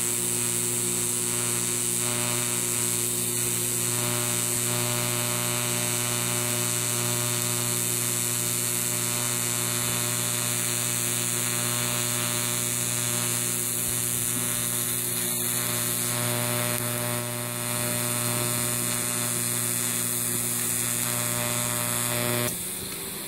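TIG welding arc buzzing steadily as filler rod is fed into the weld on a steel transmission drum; the steady electric hum cuts off near the end when the arc stops.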